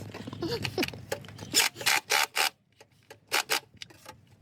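Short scraping, rubbing bursts from engine parts and tools being handled in an engine bay: three close together about a second and a half in, then two more near the end.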